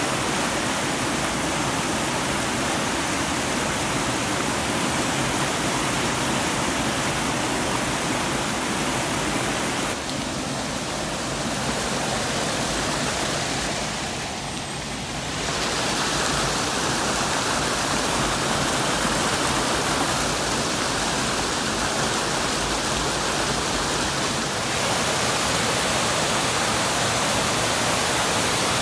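Rain-swollen stream water pouring over concrete weirs: a loud, steady rushing of falling water, briefly quieter about halfway through.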